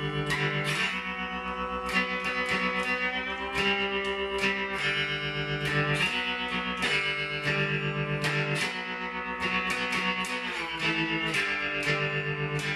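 Homemade electric string instrument played through a homebuilt 6V6 valve amplifier, a Fender clone: a run of plucked, sustained notes, a few sliding in pitch. A steady mains hum from the ungrounded amp sits underneath.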